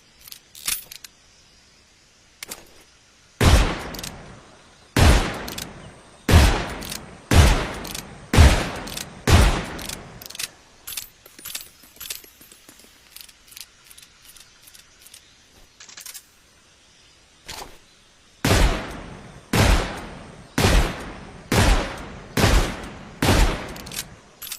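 Colt single action revolver firing: two strings of six shots, each about a second apart, with a short echo after each one. Lighter clicks come between the strings and before the first one.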